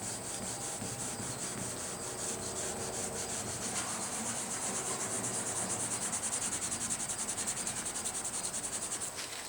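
Hand wet-sanding of automotive base coat with a soft sanding block, the paper rubbing over the panel in quick, even back-and-forth strokes of about five a second.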